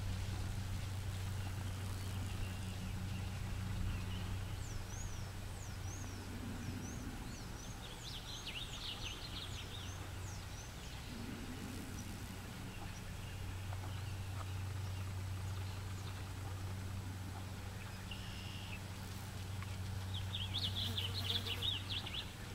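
Birds chirping and singing over a steady low hum. There is a run of quick high chirps about five to ten seconds in, and a trilling song at about eight seconds and again near the end.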